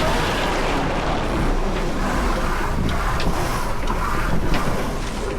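Wind buffeting the microphone and water rushing past the hull of a small racing sailboat under way, with a few short clicks.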